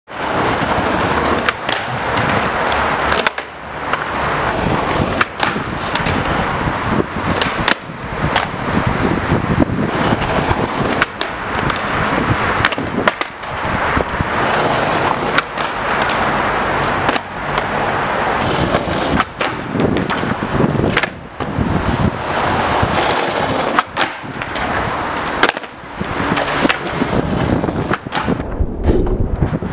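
Skateboard wheels rolling on rough asphalt, broken again and again by sharp clacks of the tail popping and the board smacking down, and by the deck scraping along a concrete ledge during boardslides.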